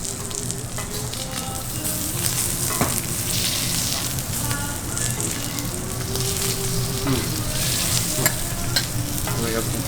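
Food sizzling steadily as it fries, with a few sharp clicks a few seconds apart.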